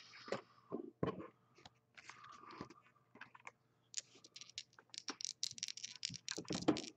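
Faint, irregular clicking and tapping of small hard objects being handled at a desk, sparse at first and turning into a quick run of clicks about four seconds in.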